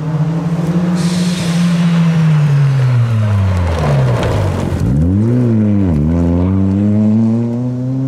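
Rally car engine on a gravel stage, high in the revs. Its pitch falls as the car sweeps past close by around four seconds in, then rises again as it accelerates away, with a brief dip near six seconds like a gear change. Gravel and tyre noise hisses about a second in.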